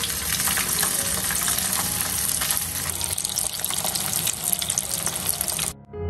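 Water running hard from a tap: a steady rushing hiss that cuts off suddenly near the end.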